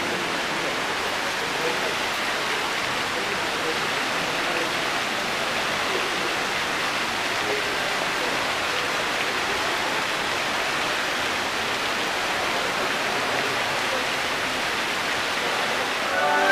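Steady splashing of water falling in a large indoor fountain, with a murmur of voices behind it.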